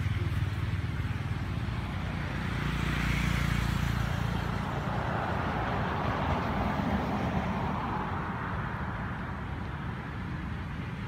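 Road traffic noise: a steady low rumble with a vehicle passing, its hiss swelling and then fading in the middle.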